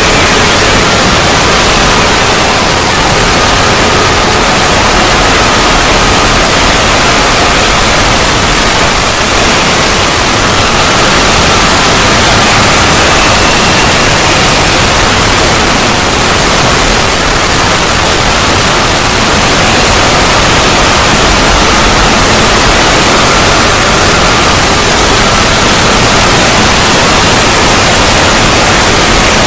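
Loud, distorted static-like noise held steady without a break: a fan-made 'void' logo sound effect drawn out at length. Faint high whines drift slightly in pitch inside the noise.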